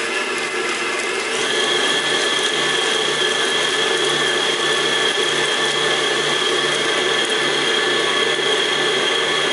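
Kenwood KMC011 Chef 750 W stand mixer running with its balloon whisk beating cheesecake mixture in the steel bowl: a steady motor whine. About a second and a half in the whine steps up and gets a little louder.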